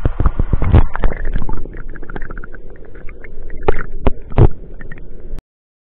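Stream water heard with the camera at and then under the surface: splashing and handling knocks in the first second, then a muffled underwater rumble with gurgling and scattered bubbly pops. It cuts off suddenly near the end.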